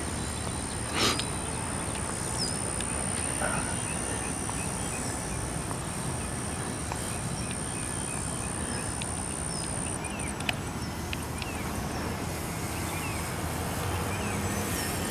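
Outdoor field ambience: a steady low noise bed with small birds chirping now and then, and a thin steady high tone that breaks up into pulses about ten seconds in. A single sharp knock comes about a second in.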